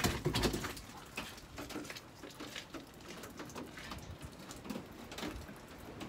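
A Labrador's paws thumping and scrabbling on the floor of a vehicle dog crate as it jumps out, loudest in the first half second. Faint scattered taps follow.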